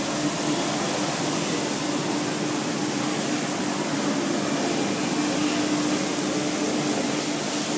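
ZJX1250 silicon steel slitting line running, slitting a steel coil into narrow strips: steady machine noise with a constant hum.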